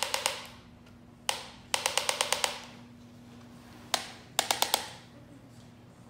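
Handheld chiropractic adjusting instrument firing against the patient's upper back, making rapid mechanical taps. The taps come in short volleys of several, about ten a second, with a single tap between volleys.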